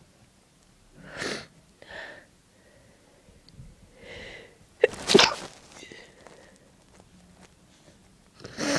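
A person sneezing: a run of strong, wet sneezes with sharp breaths between them. The loudest sneeze comes about five seconds in and another comes near the end. The sneezes are induced by tickling the nose with a clothes tag.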